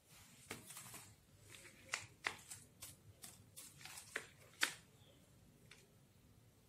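Faint handling noise: a run of small sharp clicks, taps and rustles as hands move a smartphone and the plastic earbuds of a Bluetooth headset, the loudest clicks about two and four and a half seconds in.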